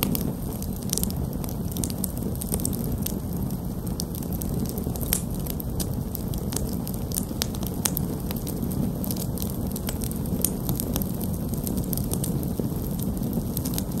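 Wood campfire of split logs burning: frequent irregular crackles and sharp pops over a steady low noise of the flames.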